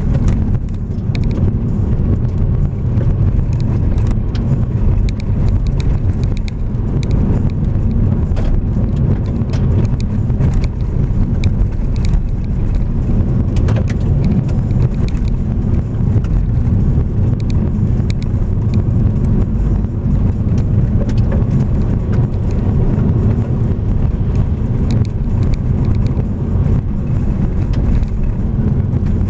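A vehicle is driving along a rough, patched forest road. A steady, loud low rumble of tyres, wind and running gear is heard, with frequent small clicks and knocks from the road surface.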